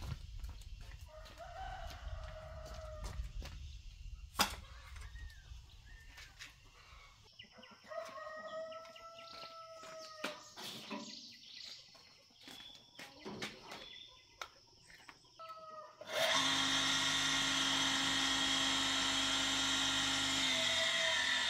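A rooster crows and clucks in the background with scattered clicks. About 16 seconds in, an electric motor is switched on and runs steadily with a loud hum and whir.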